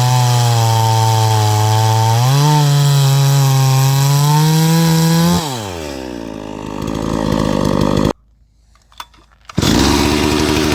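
Farmmac F380W 72 cc two-stroke chainsaw running at full throttle, its pitch rising slightly about two seconds in, then the revs falling sharply as the throttle is let off about halfway through. After a sudden cut to a short, near-silent gap with a few clicks, the saw runs loud again near the end.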